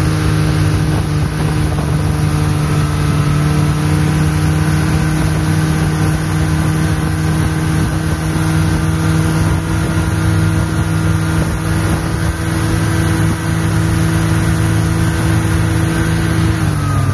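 Snowmobile engine running at a steady speed, heard from aboard; its note drops near the end as it slows.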